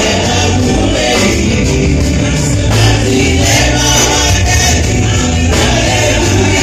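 Loud gospel music with a choir singing over instruments and a strong bass.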